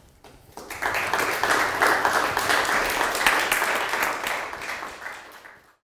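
Audience applauding, the clapping building up about a second in, thinning out, and then cutting off abruptly near the end.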